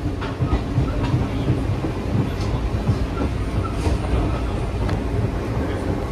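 Passenger coach of a steam-hauled train running on rails, heard from inside the car: a steady low rumble with faint scattered clicks from the wheels and track.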